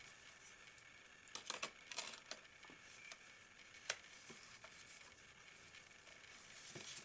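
Faint handling noises of a Canon EF 70-200mm f/4L lens being fitted onto a Canon EOS 7D's bayonet mount: light rubbing and small clicks, then a single sharp click about four seconds in as the lens is twisted on the mount.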